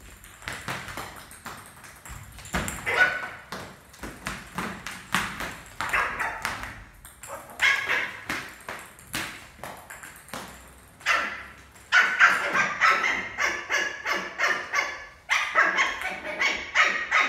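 Lhasa apso puppy barking in short yaps that come more often in the second half, over frequent light taps and clacks of a plastic cricket bat and ball on a hard tiled floor.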